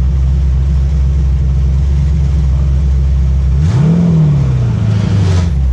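Sandrail's 6.0-litre LS V8 running at a steady low note, then about three and a half seconds in it revs up sharply and the pitch slides back down over the next second and a half before settling again.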